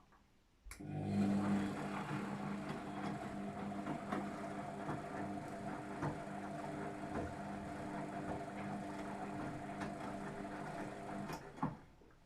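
Luxor WM 1042 washing machine turning its drum in the softener rinse: a steady motor hum with scattered ticks and knocks, starting abruptly just under a second in and stopping near the end.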